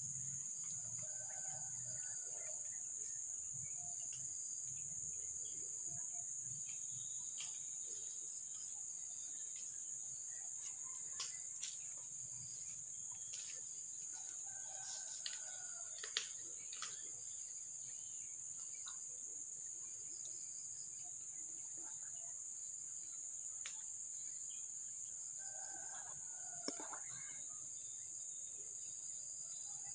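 Insects droning steadily at a high pitch, with short bird calls breaking in three times: about a second in, around the middle, and near the end.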